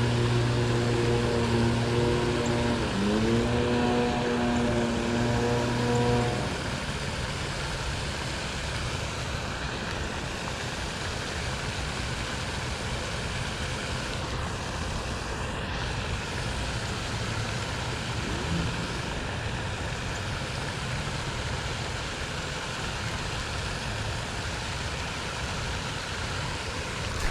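An engine drones steadily, dipping briefly in pitch about three seconds in and stopping abruptly after about six seconds. After that only a steady outdoor hiss remains.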